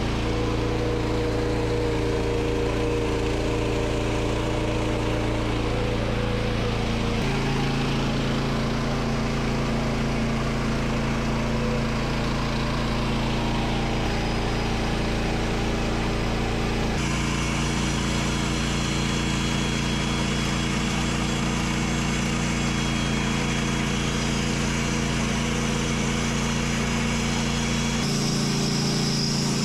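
Gas engine of a Woodland Mills HM130 MAX portable bandsaw mill running steadily at working speed while the mill saws a Douglas fir log into 2x12s. Its tone shifts abruptly a few times, about 7, 17 and 28 seconds in.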